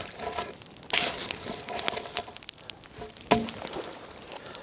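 Dry crackling and crunching with a few sharp snaps, the strongest about a second in and again just after three seconds.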